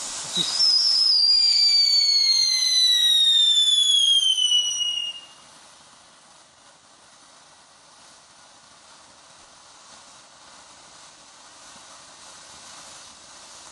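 Whistling firework giving one loud, high whistle that slowly falls in pitch for about four and a half seconds, then stops abruptly, with no bang. A faint hiss of background remains.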